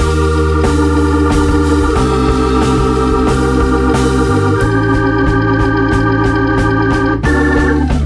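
Background music: sustained organ-like keyboard chords that change every couple of seconds over a steady beat.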